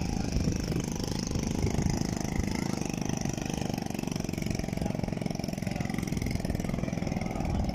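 Small motorcycle engine running steadily at idle, with a fine even pulsing.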